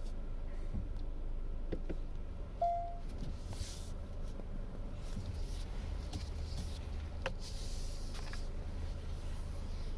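2020 Hyundai Sonata's brakes giving one short, steady-pitched squeal about two and a half seconds in as the car reverses, over the car's low steady rumble.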